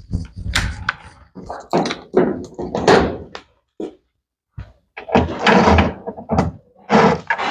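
Cordless screwdriver and handling clatter at the plastic protective cover on a washing machine's underside, as a series of short, irregular bursts of knocking and rattling.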